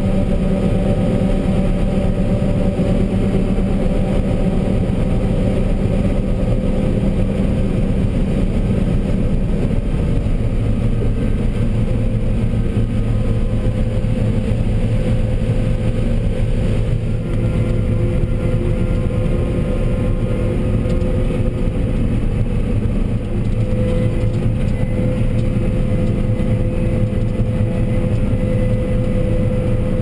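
John Deere 9770 combine running under harvest load, heard from inside the cab: a steady engine and threshing-machinery drone as it harvests corn. About ten seconds in, its low tone shifts lower and stays there.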